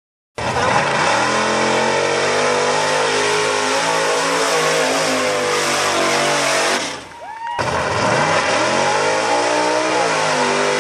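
Lifted Ford pickup truck's engine revving hard at high rpm under full throttle through a mud pit. It starts abruptly just after the beginning, drops out briefly about two-thirds of the way in, then comes back and rises in pitch.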